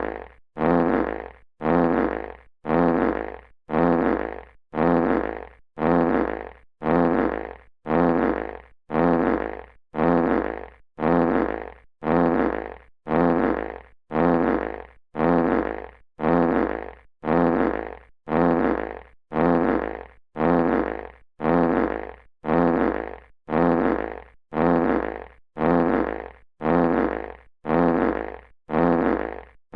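A classic fart sound effect played on a loop: the same short fart repeats about once a second, each one loud at the start and fading out.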